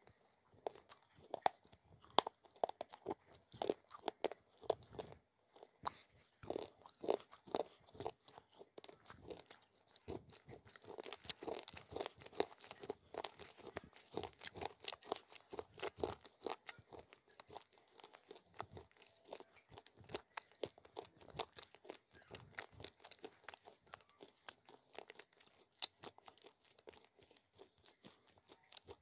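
Close-miked chewing of crunchy baked clay (Punjabi mitti), a dense, irregular run of small crisp crunches right at the mouth.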